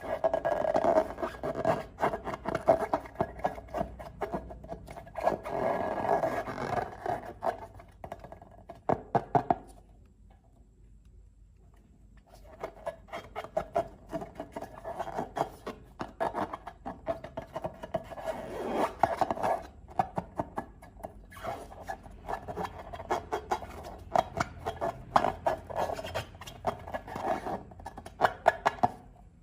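Slime being mixed and squished by hand, with many small sticky clicks and pops. It stops for about two seconds about ten seconds in, then starts again.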